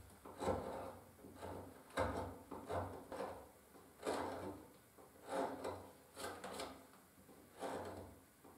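Carving chisel pushed by hand through cherry wood, paring the edge of a carved leaf in a series of short scraping cuts.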